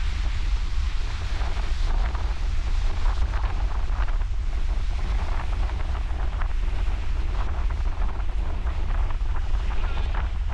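Wind buffeting the microphone with a steady low rumble, over the continuous hiss and wash of ocean surf.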